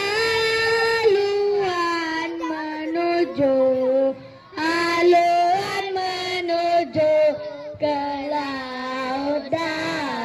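A child singing a song solo, one voice holding its notes through phrases with short breaks between them.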